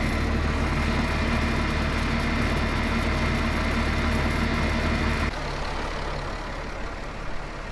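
Tractor engine running steadily at idle. About five seconds in the sound cuts abruptly to a quieter engine hum.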